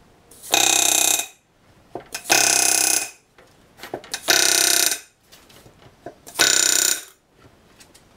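Pneumatic rivet gun with a back-rivet set hammering solid aluminium rivets against a back-riveting plate, setting stiffeners onto an aircraft elevator skin. Four short bursts of rapid hammering, each under a second and about two seconds apart, one rivet per burst, with light taps in between as the set is moved to the next rivet.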